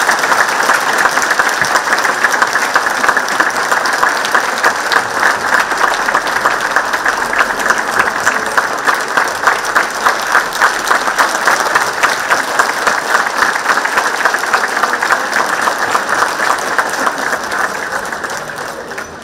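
Audience applauding. A few seconds in the clapping falls into an even rhythm, and it fades out near the end.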